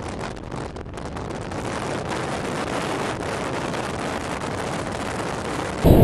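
Steady rush of road and wind noise inside a moving car, an even hiss with no engine note standing out. Just before the end it cuts abruptly to a much louder sound.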